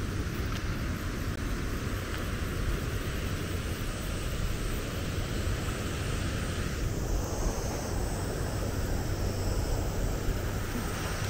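High water pouring through the open gates of a large flood-control weir, a steady rushing noise.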